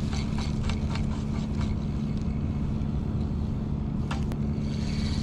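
Steady low mechanical hum at an even level, with light clicks from a spinning reel being cranked in the first couple of seconds and again about four seconds in.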